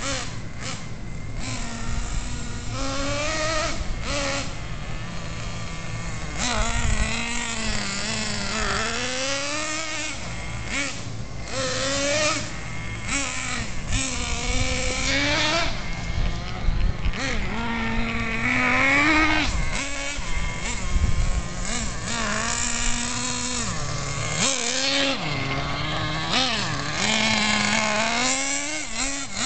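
Traxxas Jato 3.3's small two-stroke nitro engine revving up and down over and over as the RC car is driven, its pitch climbing and dropping with each burst of throttle. It is running on 10% nitro fuel while the engine is being broken in.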